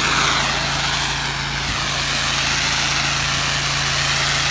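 Soft-wash sprayer spraying house-cleaning solution: a steady hiss that holds throughout, over the steady drone of a small engine driving the pump.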